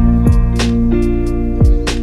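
Calm background music: guitar with held notes over a soft drum beat.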